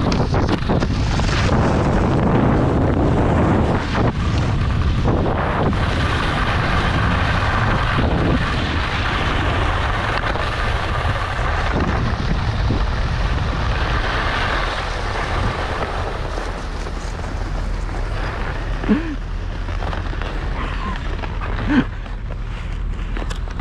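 Wind rushing over the microphone of a skier's point-of-view camera during a fast run, over the scrape and hiss of Line skis carving on hard-packed groomed snow. A few knocks come through the rush, and there are a couple of short sharp sounds near the end.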